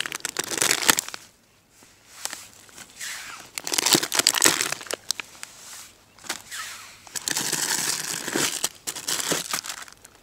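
Plastic food packages crinkling and rustling as a hand rummages through them and pulls them out of a bear canister. The sound comes in three bursts of a second or two each.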